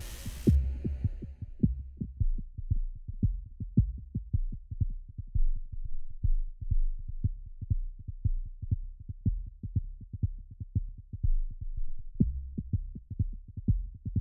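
Horror-film sound design: a steady low drone under fast, uneven low thumps, about four a second, like a racing heartbeat. A burst of hiss cuts off about half a second in.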